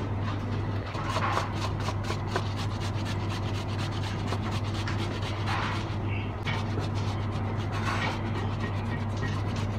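Peeled fresh ginger being grated on a stainless-steel box grater in quick, repeated strokes, over a steady low hum.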